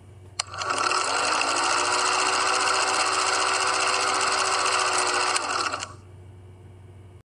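Film projector sound effect: a click, then the projector's mechanical rattle running for about five seconds, rising in pitch as it starts up and falling as it winds down, over a low steady hum that cuts off near the end.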